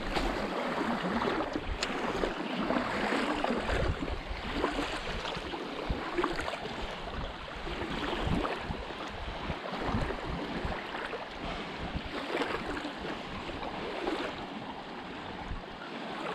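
Gusty wind buffeting the microphone over small waves lapping at a shallow shoreline.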